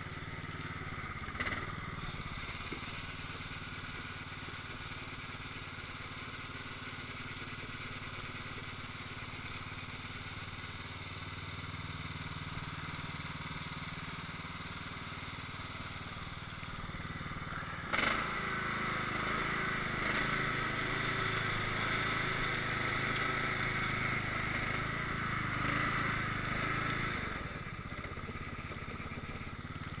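Cub Cadet XT1 lawn tractor engine running steadily while plowing snow with a front blade. About eighteen seconds in there is a sharp knock, after which the engine runs louder for about nine seconds before dropping back.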